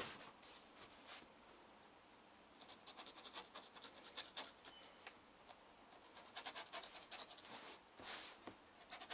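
A knife cutting and scraping a shallow hollow into a sheet of packing foam: faint quick runs of scratching strokes, starting a few seconds in and again near the end.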